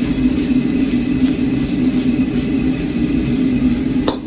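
Loud, steady roar of a high-heat gas wok burner, with fried rice frying in a steel wok as a ladle stirs it.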